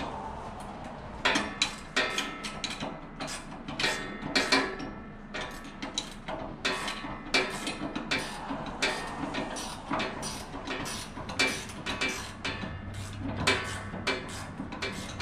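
Hand ratchet wrench clicking in short, uneven runs with sharp metallic clinks as a bolt is tightened on the snow blower's steel frame.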